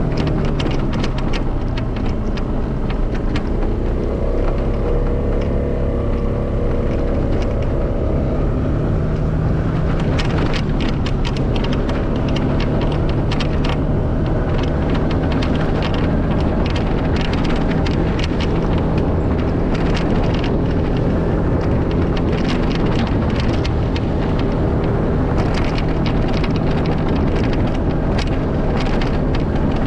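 A motor vehicle's engine running steadily under load up a hill, with tyre noise and wind buffeting the microphone in frequent crackling gusts.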